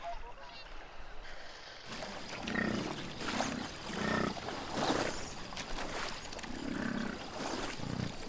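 A large wild animal growling, a run of short, deep growls roughly a second apart that begins about two seconds in.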